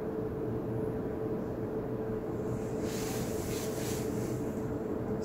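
Steady hum of room equipment with a constant mid-pitched tone, and a brief soft rustling hiss about three seconds in.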